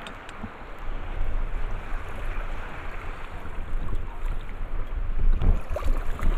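Wind buffeting the microphone in gusts, a heavy rumble over the wash of choppy lake water; the gusts pick up about a second in and grow stronger near the end.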